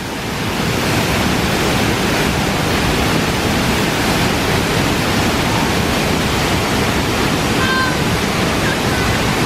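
Mahua waterfall's steady rush of falling water, loud and even, rising over the first second and then holding constant.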